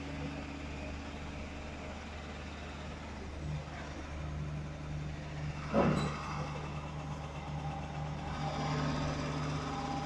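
A steady low hum, like a motor running, with a brief upward-sweeping call about six seconds in.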